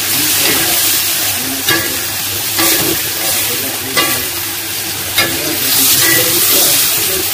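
Wild mushrooms sizzling in a steel wok while a metal spatula stirs and scrapes them, with four sharper scrapes of the spatula against the wok.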